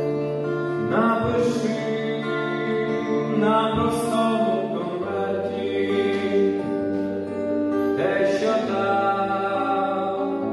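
Music of a slow song: sustained chords over a low bass note that changes every few seconds, with soft accents about a second, four seconds and eight seconds in.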